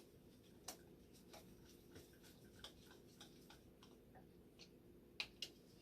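Faint, irregular light clicks and taps of small parts being handled during a repair, a couple of louder clicks close together near the end, over a low steady hum.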